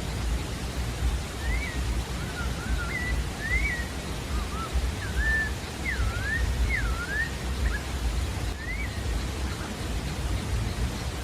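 Sabiá-da-várzea thrush singing: a string of short, clear whistled phrases that slide up and down, with brief gaps between them, over a steady low background rumble.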